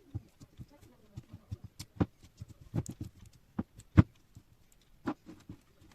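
Slime being squished by hand, making irregular sticky clicks and pops. The loudest pop comes about four seconds in.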